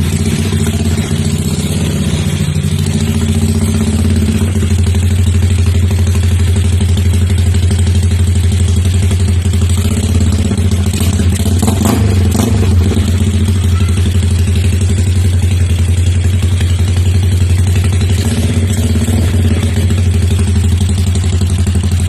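Honda TMX 160cc single-cylinder motorcycle engine idling steadily through an aftermarket PCT Charama 9 exhaust pipe, loud and even, shortly after starting.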